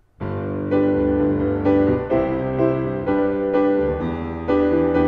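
Piano or keyboard music starting about a quarter second in, chords changing at a steady pace.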